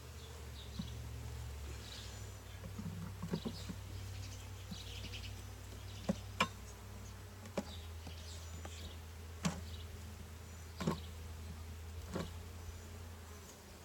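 Honeybees buzzing around an open hive, with about half a dozen sharp knocks partway through.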